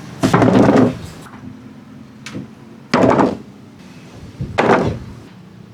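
Marbles clattering along a wooden marble-run track: three loud wooden knocking bursts of about half a second each.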